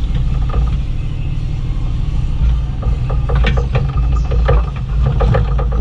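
Bobcat E35i mini excavator's diesel engine running steadily while digging. From about three seconds in there is a run of short knocks and scrapes from the bucket and arm working the ground.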